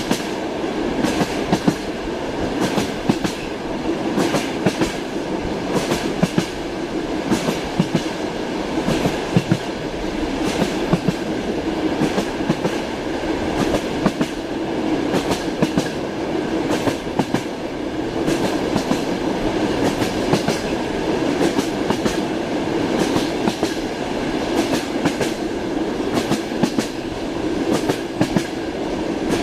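Passenger train running along the track, heard from inside the carriage: a steady rumble with the repeated clickety-clack knocks of the wheels over the rail joints.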